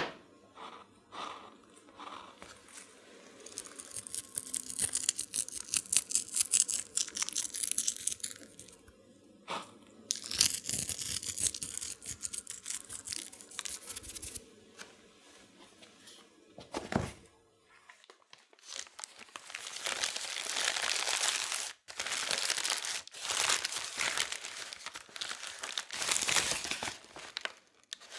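Salt sprinkled from the fingers, crackling finely as it lands on sliced mozzarella on the pastry, in two spells; a single knock; then a brown paper bag crinkling loudly for several seconds.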